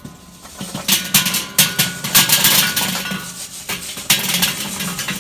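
Glowing charcoal briquettes being tipped out of a metal chimney starter into a steel charcoal basket, clattering and tumbling in an irregular run of sharp knocks, with the chimney knocking against the basket.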